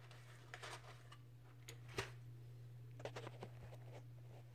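Light clicks and rustles of a cardboard pasta box being handled, with one sharper click about two seconds in, over a steady low hum.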